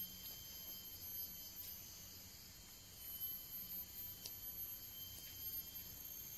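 Steady chorus of forest insects, several high-pitched tones held without a break. A few faint clicks of a spoon against a metal pot fall in it.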